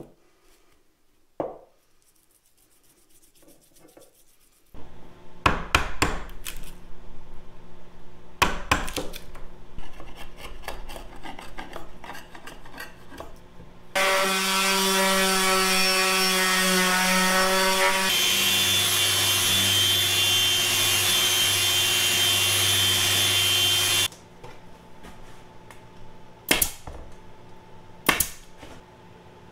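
Random orbital sander running on a strip of wood for about ten seconds, its tone changing partway through. Before it come scattered light clicks and knocks of shop work, and near the end two sharp bangs about a second and a half apart.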